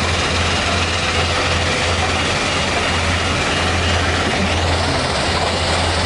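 Kobelco hydraulic excavator working beside a mobile stone crusher: a loud, steady din of diesel engines and machinery over a low hum, with a rising whine about four and a half seconds in.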